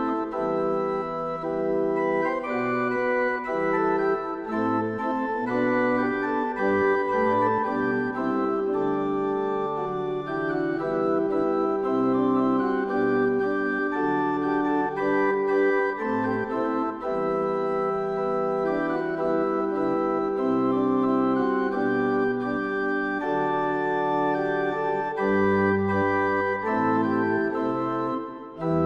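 Organ playing the postlude after the dismissal: sustained chords over a bass line that moves every second or two, with a short break near the end before a new low chord sounds.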